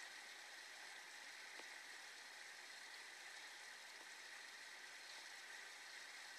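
Near silence: a faint steady hiss of room tone, with a faint tick about a second and a half in.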